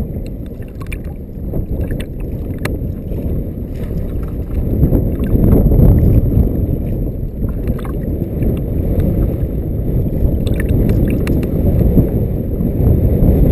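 Strong wind buffeting the microphone with a low, steady rumble, over choppy lake water slapping against an inflatable float tube. The rumble grows louder about a third of the way in, and a few faint sharp ticks sound over it.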